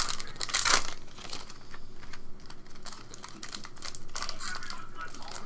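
Foil wrapper of a 2014 Upper Deck SP Authentic football card pack crinkling in the hands as it is taken up and opened, together with the light clicks and snaps of trading cards being handled. It comes as a string of short crackles, with a louder one about half a second in.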